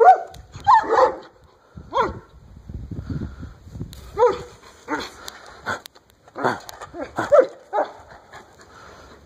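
Alaskan malamute vocalizing in a string of short, pitched calls that bend up and down, a few near the start and a longer run in the second half.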